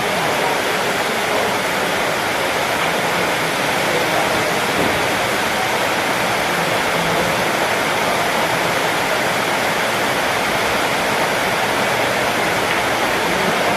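Steady, even rushing noise with no rhythm or pitch, holding at one loud level throughout.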